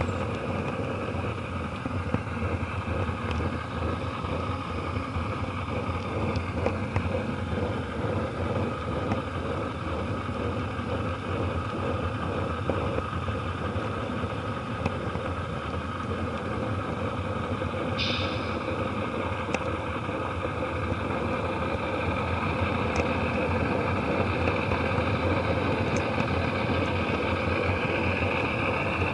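Model train rolling along the track, heard from a camera riding in a gondola at the head of the train: a steady rumble of wheels on rail and the car's rattle, muffled by the camera's waterproof case, with small clicks throughout. A brief sharp sound comes about eighteen seconds in, and the rumble grows a little louder near the end.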